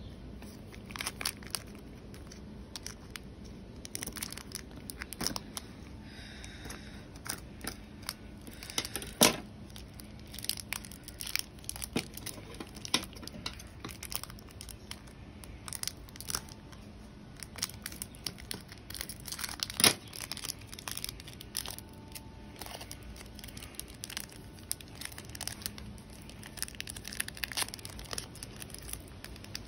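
Foil Pokémon booster-pack wrapper being cut with scissors and crinkled in the hands: a steady run of short crackles and clicks, with two louder snaps along the way.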